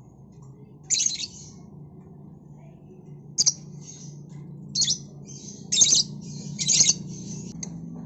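Caged lovebird giving about five short, shrill, harsh squawks a second or so apart.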